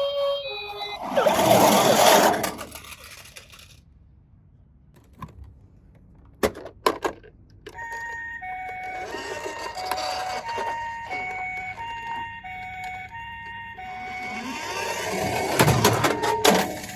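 A two-tone hi-lo ambulance siren, the Japanese 'pii-poh', alternating between two pitches about every half second. It starts about eight seconds in and stops shortly before the end. About a second in, and again near the end, there is a loud rattling rush of toy minicars running down a plastic slide, with a few sharp clicks in the quiet between.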